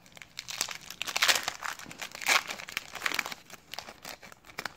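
Silver foil trading-card pack crinkling and tearing as it is opened by hand, in dense crackles, loudest a little past one second in and again past two seconds in, then thinning out.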